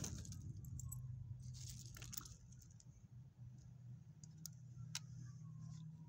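Metal ID tags on a small dog's collar jingling in a few short bursts as the dog moves on its leash, over a faint steady low hum.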